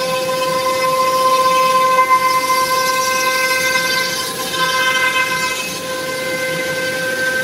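High-speed milling spindle of a CNC foam cutting machine, running with a steady high-pitched whine while its cutter mills EPE foam.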